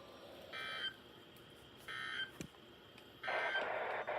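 Emergency Alert System SAME digital data bursts heard through a radio receiver: two short, warbling high tone bursts about a second and a half apart, then a third, louder and hissier burst near the end.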